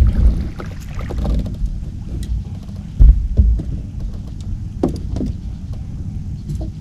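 Low rumble with scattered knocks and clicks of handling on a small fishing boat, with two heavy dull thumps about three seconds in.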